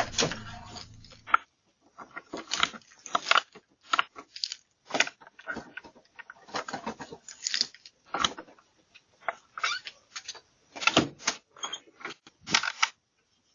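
A front door being knocked on and rattled: a string of irregular sharp knocks and clatters with short gaps between them, picked up by a doorbell camera's microphone. Background music stops about a second in.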